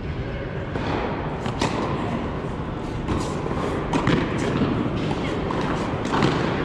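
Tennis ball being struck by rackets and bouncing on a hard court during a rally, heard as a handful of sharp knocks a second or so apart. The knocks ring in a large indoor hall over a steady hum.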